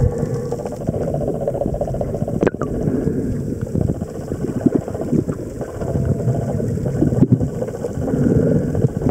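Underwater noise picked up by a camera below the surface: a steady low rumble of moving water with scattered crackles and a few sharper clicks.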